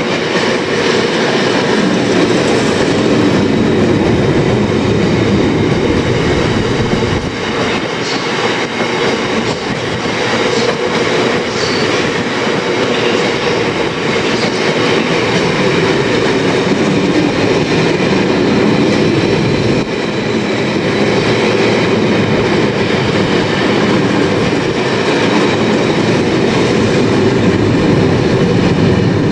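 Freight train wagons rolling past, a loud, steady rumble of steel wheels on the rails with clicks as they cross the rail joints.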